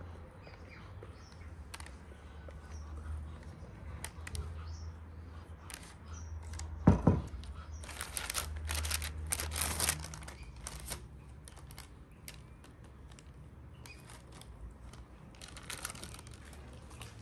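Silicone spatula spreading batter over parchment paper in a metal baking tray: soft scraping and paper rustling, in patches, with one short thump about seven seconds in. Birds chirp faintly in the background.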